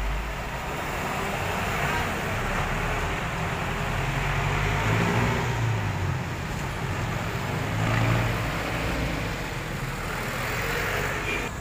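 Street traffic: a city bus's engine running as it passes, then the engines and tyres of other vehicles, swelling about five and again about eight seconds in.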